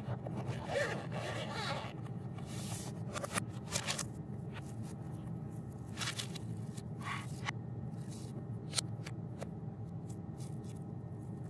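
Handling sounds at a desk over a steady low hum. A hard-shell headphone case is zipped shut in the first couple of seconds. Then a sheet of paper and a plastic sleeve rustle and crinkle, with small taps and clicks near the end.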